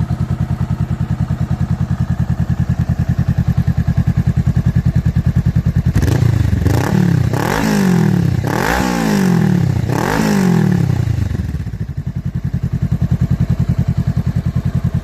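Honda Rebel 500's parallel-twin engine through a Diablo super short slip-on exhaust, idling with an even, pulsing beat. From about six seconds in it is revved in several quick blips, each rising and falling, and then it settles back to idle.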